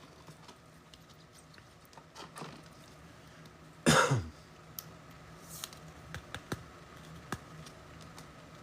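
A single cough about four seconds in, loud and short, over faint scattered clicks and ticks of trading cards and packs being handled.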